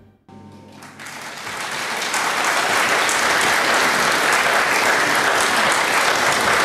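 Audience applause right after the band's final chord: clapping starts about a quarter second in, swells over the next two seconds and then holds steady.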